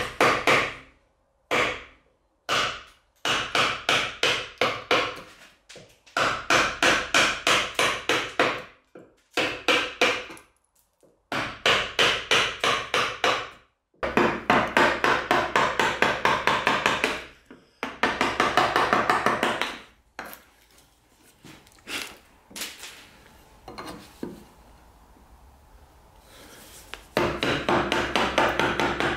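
Wooden mallet striking a bench chisel into hardwood, chopping out a notch, in quick runs of about four sharp blows a second with short pauses between runs. Over a quieter stretch late on there are only a few light taps, then a final run of blows near the end.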